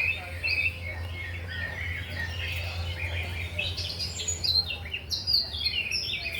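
Several birds chirping and tweeting in short overlapping notes, getting busier in the second half, over a steady low hum.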